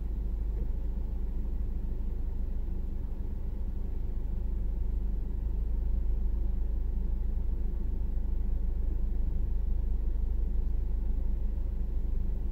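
Steady low rumble inside a parked car's cabin, the car's engine idling.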